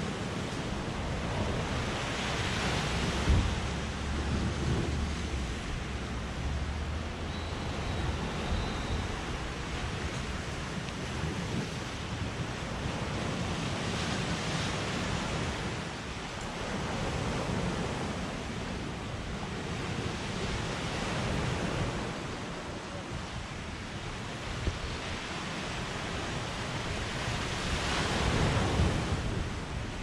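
Surf breaking on a sandy shore: a steady wash of waves that swells louder three times, with some wind rumbling on the microphone.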